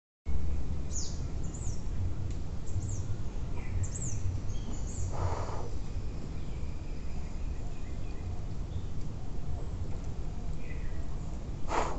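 Forest ambience: a steady low rumble with short, high bird chirps that fall in pitch, mostly in the first five seconds, and two brief rustling swishes, about five seconds in and near the end.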